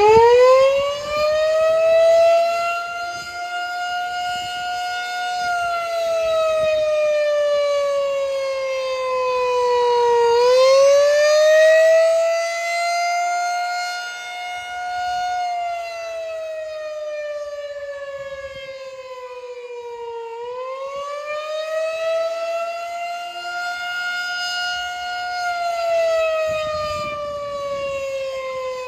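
Outdoor tornado warning siren sounding its monthly test: it winds up quickly at the start, then holds a loud, many-toned wail whose pitch slowly sinks and swings back up about every ten seconds.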